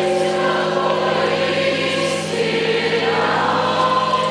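A choir singing, with the steady hum of large church bells sounding underneath.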